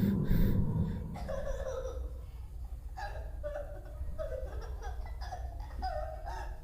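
People laughing and giggling, loudest in the first second, then quieter, broken laughter.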